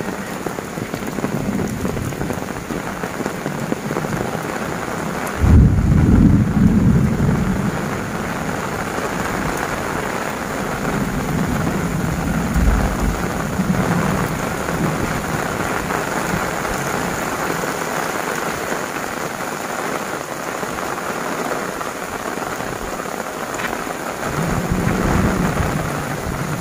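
Heavy rain falling steadily, with thunder: a loud low rumble breaks in about five and a half seconds in and lasts a couple of seconds, with weaker rumbles around twelve seconds and near the end.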